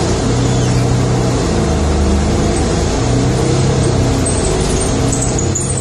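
Inside a moving road vehicle: steady engine hum and road noise, the low hum shifting in pitch every second or so.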